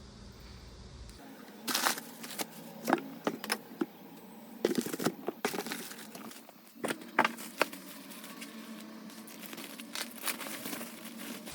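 Crinkling and clicking of album packaging being handled and opened: plastic and paper rustling in short, irregular bursts.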